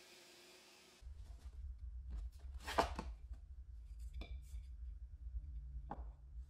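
Wooden workpiece knocking against a wooden tabletop as it is set down and handled: a few short knocks, the loudest about two seconds in, over a low rumble.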